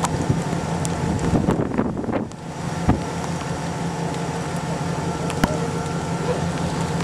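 Wind rushing across the microphone over a steady low hum, dropping briefly a little over two seconds in, with two sharp clicks, one near the middle and one later.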